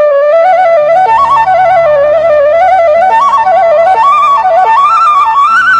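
Background music: a single melody instrument playing a quick, ornamented tune that steps up and down over a steady low drone.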